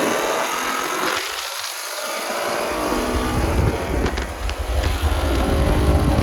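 V8 car engine at wide-open throttle during a roll race: its low rumble drops away briefly about a second in, then builds back up and stays loud, with wind noise on the microphone.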